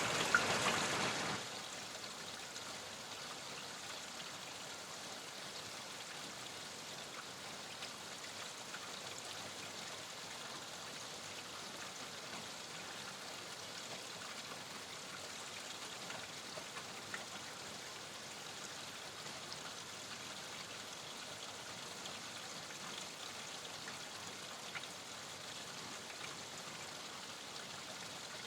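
Steady rain: an even hiss with a few single drops ticking now and then, louder for the first second and a half, then settling to a constant level.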